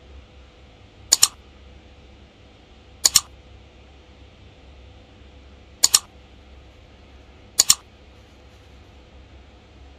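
Computer mouse click sound effect from a like-and-subscribe animation: four double clicks, about two to three seconds apart, over a faint steady background hiss.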